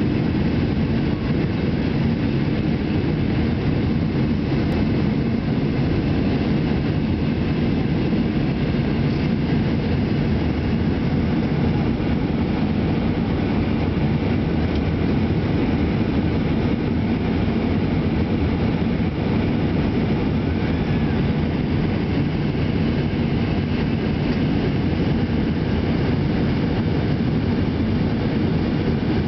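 Steady airliner cabin noise during the climb after takeoff: a low, even rumble of the jet engines and rushing airflow heard from inside the cabin.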